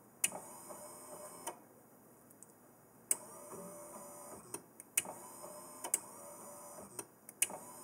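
Linear actuator's small electric motor whirring in several short runs of about a second each, every run starting and stopping with a click, as the actuator drives against a vise and stalls. The cut-outs look to be built-in overload protection stopping the motor.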